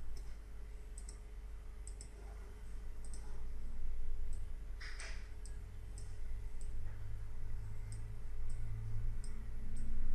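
Computer mouse clicking: about a dozen light, sharp clicks at irregular intervals over a steady low hum. About five seconds in there is one brief, louder rustling noise.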